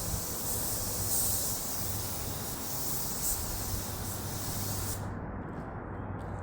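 Black top-coat paint being sprayed: a steady hiss from the sprayer that cuts off suddenly about five seconds in. A low steady hum runs underneath.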